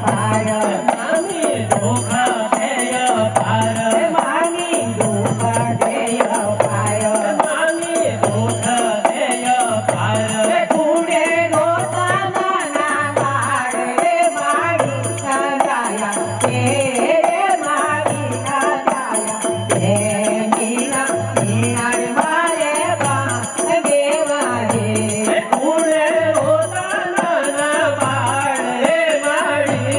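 A traditional Gujarati garba song sung by men through a microphone and PA. Under the voices run a steady low drum beat, a little faster than once a second, and rattling percussion.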